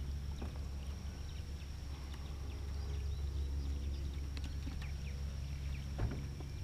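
Jon boat's trolling motor running steadily, a low hum with a thin high whine above it. Scattered light ticks and a single knock about six seconds in.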